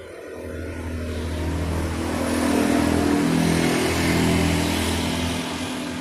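A motor vehicle passing by: its engine and road noise grow louder, peak about halfway through, then fade away.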